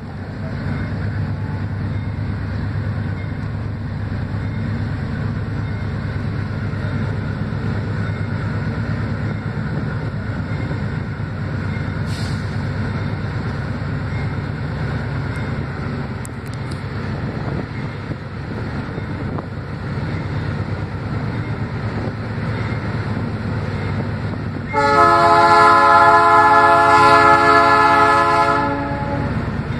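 Diesel freight locomotives approaching with a steady low engine rumble. About 25 seconds in, the locomotive's air horn sounds one long blast of about four seconds.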